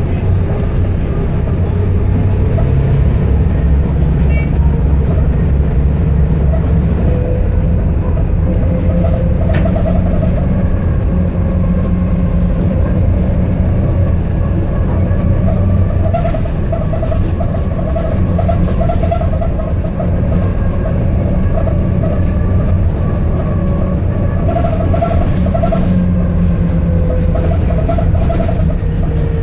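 Cabin noise of a Volvo B7TL double-decker bus under way: a steady low engine drone with a gearbox whine over it. The whine rises over the first several seconds, holds, and falls away near the end.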